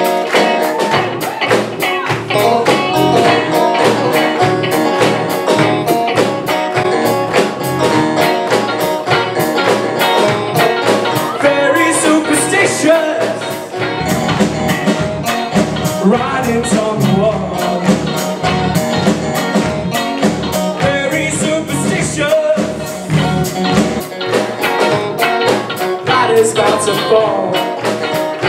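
Live rock band playing with electric guitars, drum kit and keyboard; about halfway through a deeper bass line comes in.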